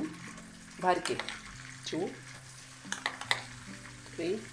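Butter and oil sizzling in a frying pan as spoonfuls of flour are added, with a few quick clicks of a spoon about three seconds in.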